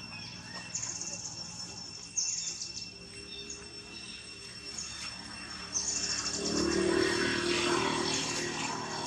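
A troop of long-tailed macaques scuffling, with a burst of agitated calling and commotion from about six seconds in that is the loudest part. Short high chirping trills repeat every second or two in the background.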